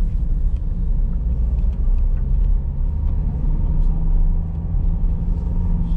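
Car on the move, heard from inside the cabin: a steady low rumble of road and wind noise with a low engine hum underneath.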